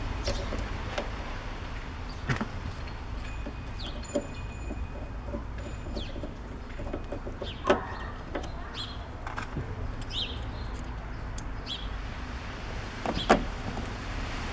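Sharp metallic clicks and taps of screws and a screwdriver as the snowblower carburetor's cover is screwed back on: three distinct knocks, the loudest near the end, over a steady low hum. Birds chirp briefly in the background.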